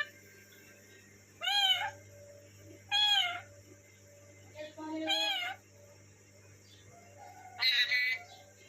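Parrot giving four separate cat-like meowing calls, each about half a second long and rising then falling in pitch.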